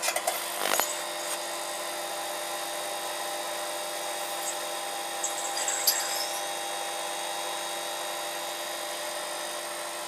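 Microwave oven running with a light bulb inside: a steady electrical hum and buzz. Brief crackles of sparking rise over it about a second in and again near six seconds.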